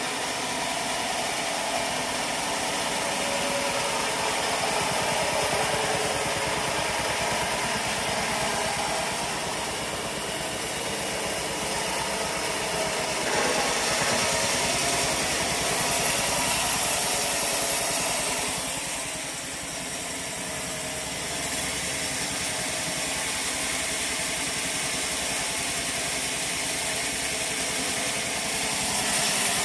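Sawmill machinery running steadily: an engine with a continuous mechanical hum, with a slight dip in level past the middle.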